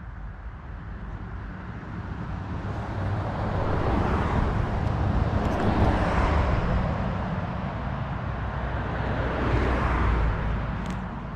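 Road vehicles passing: a rushing tyre-and-engine noise swells and fades as one goes by, then a second swells and fades about ten seconds in.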